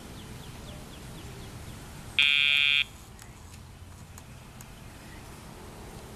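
A single electronic buzzer tone, steady and lasting just over half a second, about two seconds in.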